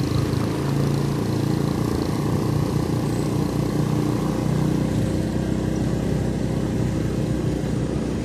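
A small motorcycle engine running steadily at cruising speed, its low hum wavering a little, over a haze of road and wind noise.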